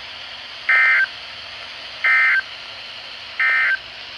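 Three short, identical bursts of Emergency Alert System SAME data tones, about a second apart, each a brief warbling squawk: the end-of-message signal that closes a flood warning broadcast. A faint steady hum lies underneath.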